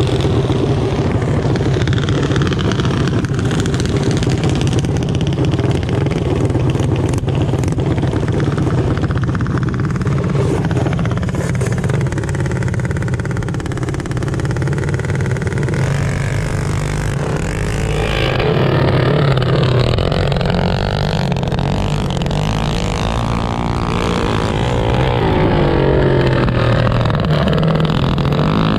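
Mini bike engines running and revving on a flat track, their pitch rising and falling over a steady low engine hum. The revving grows busier about two-thirds of the way in.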